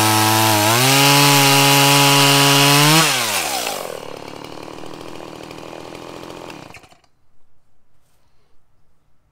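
Stihl MS 170 two-stroke chainsaw running at high revs, its pitch stepping up a little under a second in. The throttle is released about three seconds in and the pitch falls to idle. The engine is shut off about seven seconds in.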